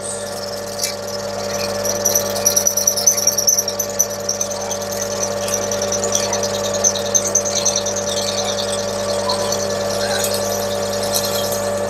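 Metal lathe running with a steady hum while a drill in the tailstock chuck bores deep into a brass pump body, giving a faint, high, wavering cutting sound with small ticks. The drill's flutes are buried in the hole, so chips are not clearing well.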